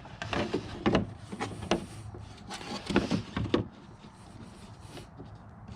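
Irregular light knocks, clicks and rubbing as a fiberglass tail light overlay piece is handled and set against the car's rear panel for a test fit. They are busiest in the first three seconds or so, then fewer.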